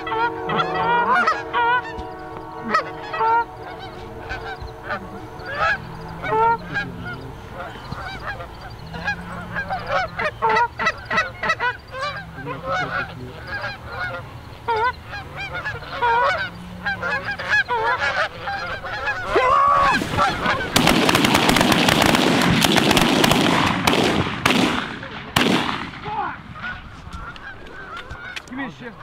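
Canada geese honking, many short calls in quick succession from a flock. About twenty seconds in, a loud rushing noise lasts for several seconds over the calls.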